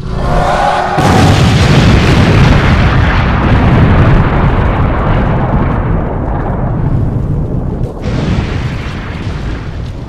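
Cartoon explosion sound effect as an energy blast hits: a loud, rumbling blast that sets in about a second in, rolls on for several seconds and eases off near the end.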